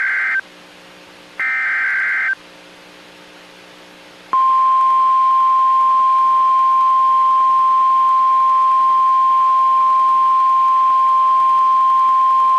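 NOAA Weather Radio emergency alert. The last two bursts of the SAME digital header sound as harsh, buzzy data squawks about a second apart, then about four seconds in the steady single-pitch 1050 Hz warning alarm tone begins and holds. Together they signal a severe thunderstorm warning.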